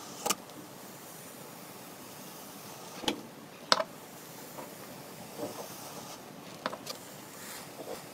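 Metal ball scoop cutting and lifting pink moldable sand in a metal tin: a soft scraping over a steady hiss, broken by a few sharp clicks, the loudest at about three and four seconds in.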